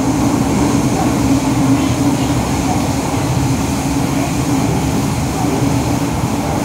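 Cabin noise of an MTR Metro-Cammell M-train running through a tunnel: a steady rumble from the wheels and running gear, with a steady low hum.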